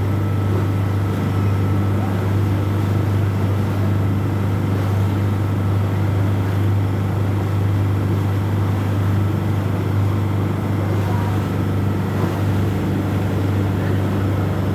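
Old boat's engine running steadily, a loud, even low drone.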